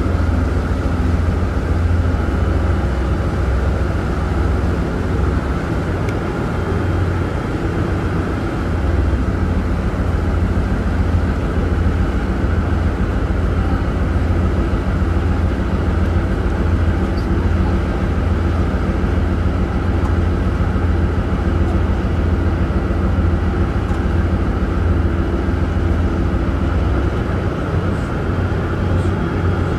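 Steady low drone of the Osprey 2000 car ferry's diesel engines running under way, heard on board.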